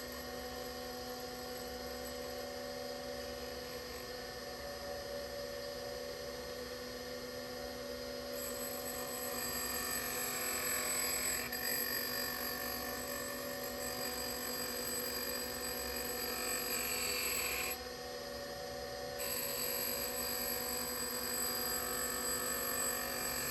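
Brown & Sharpe No. 618 Micromaster surface grinder running under power: a steady motor and spindle whine made of several held tones. It shifts slightly about eight seconds in and dips briefly near eighteen seconds.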